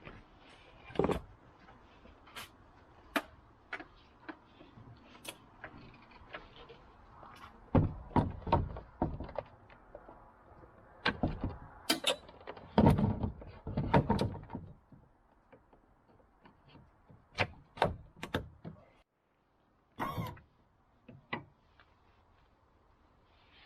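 Irregular knocks, clicks and thuds, some single and some in quick clusters, the heaviest bunched together a little past the middle, over a faint steady hiss.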